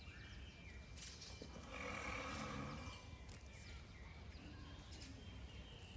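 Greater one-horned (Indian) rhinoceros breathing out through its nostrils at the water surface: one breathy exhale about two seconds in, lasting about a second.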